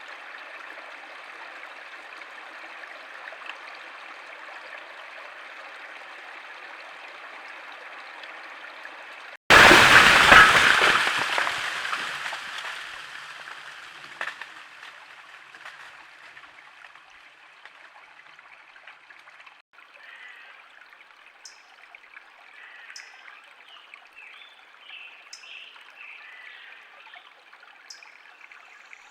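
Steady hiss of storm rain, then about nine seconds in a sudden loud crash of a large tree falling, fading over several seconds with a further knock a few seconds later. Afterwards the hiss is softer, with a few short high chirps.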